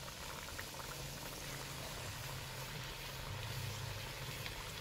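Battered chicken pakora deep-frying in hot oil in an aluminium pot, a steady sizzling hiss with fine crackles.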